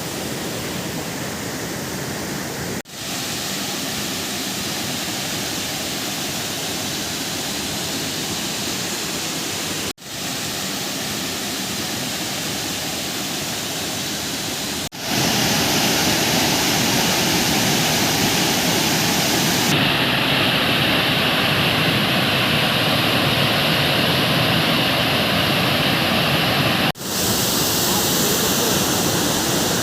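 Steady rush of water from a waterfall, broken by four brief dropouts where the footage is cut; it is louder and brighter from about halfway on.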